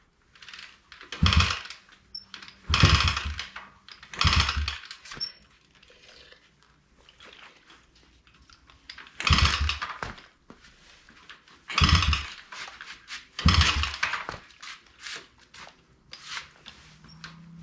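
A Chinese pit bike engine being kick-started with the choke on: six short kicks, each a brief burst of the engine turning over, in two groups of three with a pause of several seconds between. The engine does not catch and run.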